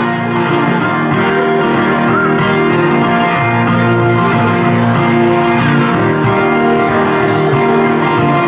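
Two acoustic guitars strummed together in a steady rhythm, an instrumental stretch of a children's song.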